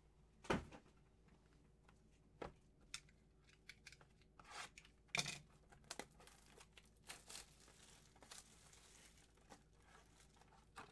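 Packaging on a trading card box being torn open and crinkled, with a few light knocks and clicks as the box is handled; a longer stretch of tearing about eight seconds in.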